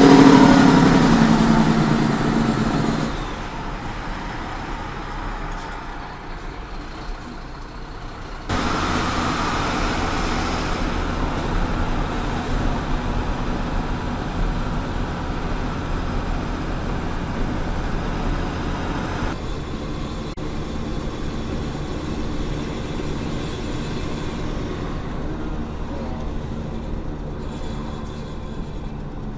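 Engine and road noise heard from inside a truck's cab while driving, steady within each clip but jumping abruptly in level about 8 seconds in and again about 19 seconds in, where clips are cut together. A loud pitched sound is the loudest thing over the first three seconds.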